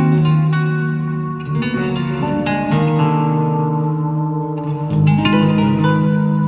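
Nylon-string electric guitar played fingerstyle: plucked melody notes ringing over held low bass notes, with a new, louder bass note coming in about five seconds in.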